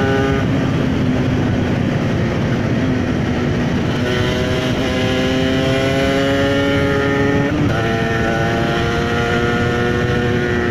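Cagiva Raptor 125 motorcycle engine running under way. Its note climbs slowly through a gear, drops sharply at a gear change about three-quarters of the way in, then climbs again, over a steady rush of wind on the microphone. It is ridden gently and held low in the revs to spare the engine.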